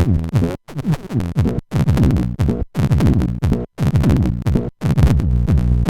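Moog DFAM analog percussion synthesizer running a sequenced pattern of quick hits, each sweeping down in pitch. The pattern comes in phrases about a second long with short silent gaps between them, running without gaps near the end.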